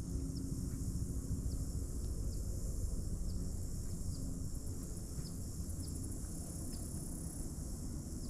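Steady high-pitched chorus of insects in riverside swamp vegetation, with faint short falling chirps repeating every second or so, over a low steady rumble.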